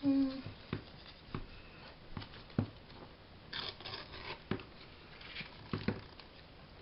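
Sheet-music paper being torn into a strip, with raspy tearing about halfway through and again near the end, among light taps and rustles of paper being handled.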